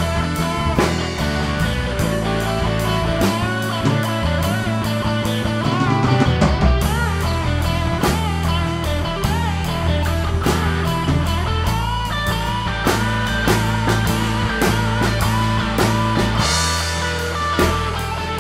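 Live rock band playing an instrumental passage: an electric guitar with wavering, bending notes over sustained low bass notes and a drum kit keeping a steady beat.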